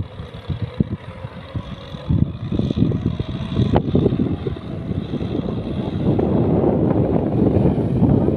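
Kubota farm tractor's diesel engine running as it tills a flooded rice paddy with its rear rotary tiller, with wind buffeting the microphone. The low rumble grows louder over the last few seconds.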